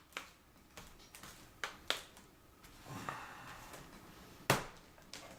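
Plastic case panels of an HP Pavilion G7 laptop being snapped back into place. A series of sharp plastic clicks, the loudest about four and a half seconds in.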